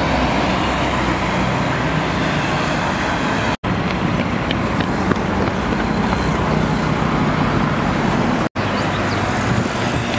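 Motor vehicle engine and road noise, a steady loud roar with a low hum, cutting out for an instant twice.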